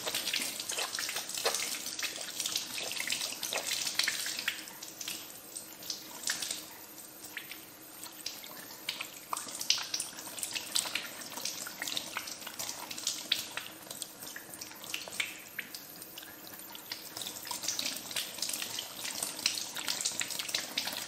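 Tap water running and splashing over hands being rubbed together under the stream, a steady rush broken by many small splashes.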